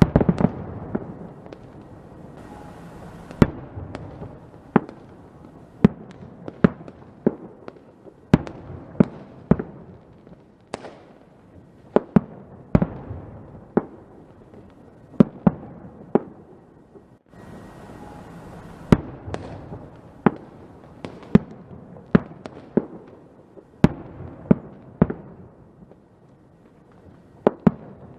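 Fireworks going off: sharp bangs at irregular intervals, roughly one a second, over a steady hiss.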